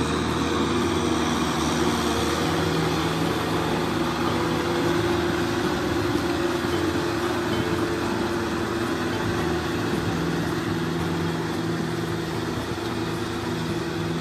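Kubota M6040SU tractor's diesel engine running steadily under load as it tills a flooded, muddy paddy field.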